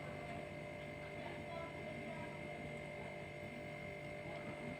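Quiet room tone: a faint steady hum with a thin, high-pitched whine held on one note.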